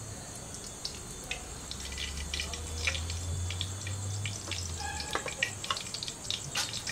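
Cooking oil poured in a thin stream from a small bowl into a kadai heating over a flame, with scattered small crackles and ticks as the oil lands and spreads in the pan.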